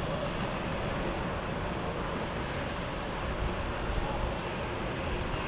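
Boat engines running on the water, a steady low rumble mixed with wind noise.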